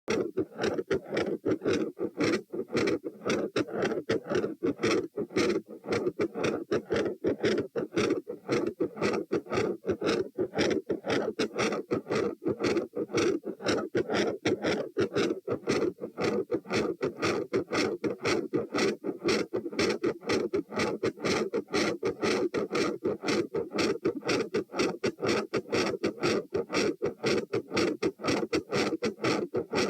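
Heart sounds at about 114 beats a minute, heard through a stethoscope at the tricuspid area: S1 and S2 follow each other in a quick, regular rhythm. The S1 sound varies in loudness with breathing.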